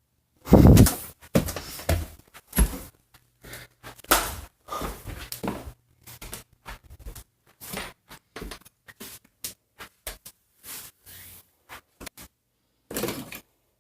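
Irregular string of knocks and thumps in a small room, the heaviest about half a second in.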